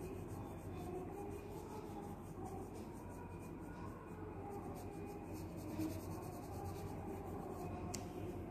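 Pencil lead scratching on paper in quick, short repeated strokes, hatching shading lines.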